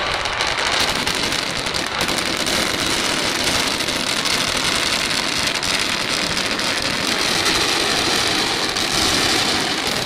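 Fireworks crackling and popping densely and without a break, over a low rumble, like the sound of a rain-like shower of crackle shells.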